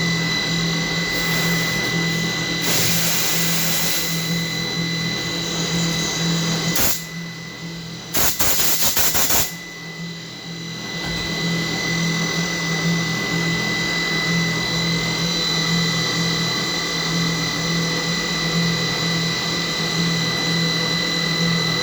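CNC machining center milling a hexagon, running with a steady high whine and a pulsing low hum. Twice, about three seconds in and again about eight seconds in, a loud hiss cuts in for a second or so.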